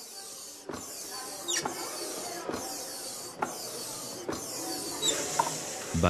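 A steady high hiss, broken by a short knock about once a second, in a regular rhythm.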